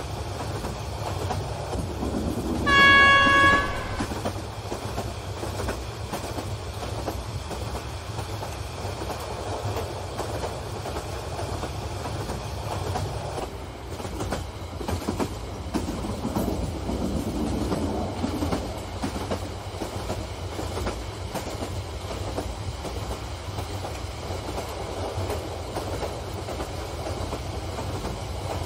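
Electric model freight train running along its track with a steady low running noise of motor and wheels. About three seconds in, a train horn sounds once, held for about a second, the loudest sound in the stretch.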